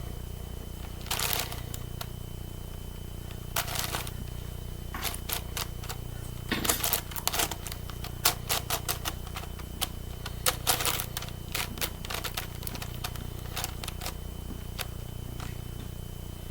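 Plastic layers of a 9x9 Rubik's cube being turned by hand: irregular clicks and clacks, some single and some in quick runs, as edge pieces are paired up.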